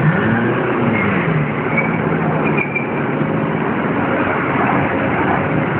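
Street traffic: a motor vehicle's engine passes, its pitch rising and then falling during the first second or so, then running steadily, over constant road noise.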